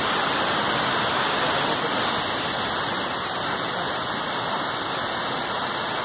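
Waterfall pouring down a rock face onto boulders: a steady, unbroken rush of falling water.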